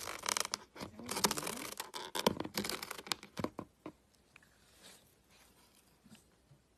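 Cat paws scratching and scrabbling at a corrugated cardboard box, a dense run of scratchy rustles and clicks that thins out to a few faint ticks after about three and a half seconds.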